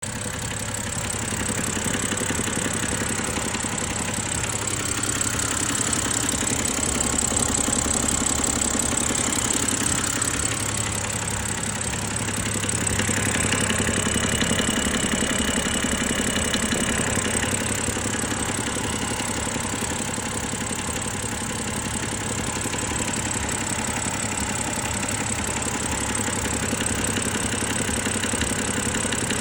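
BMW N52B30 3.0-litre straight-six engine idling steadily with a knock whose cause the owner cannot identify.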